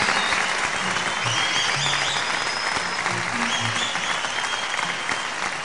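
Concert audience applauding at the end of a song, a dense run of clapping with a few high whistles rising and falling over it.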